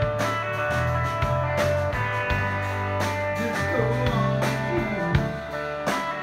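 Live band playing: an electric bass line under drums, with sharp drum and cymbal hits.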